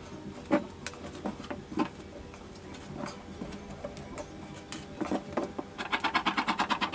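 Cloth and a paper pattern handled on a table, with scattered light clicks and rustles. From about six seconds in, fabric scissors snip quickly through the cloth along the curved pattern, about ten short snips a second.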